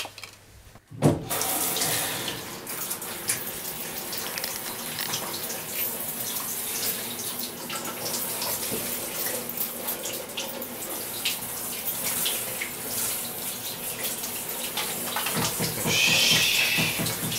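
Handheld shower spraying water onto a glass bathroom mirror, rinsing it before scrubbing. The water comes on suddenly about a second in, runs steadily, and gets louder near the end.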